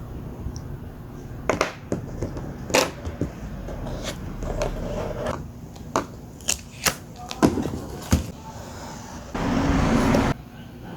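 Paper and craft materials being handled for a collage card: a string of light taps and clicks, then a louder rubbing rustle lasting about a second near the end.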